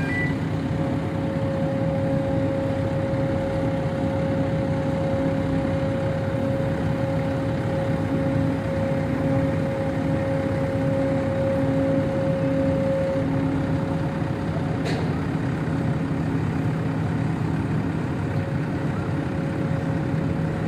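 Backhoe loader's diesel engine running steadily, with a steady hum over it that fades about thirteen seconds in. A single sharp click comes about fifteen seconds in.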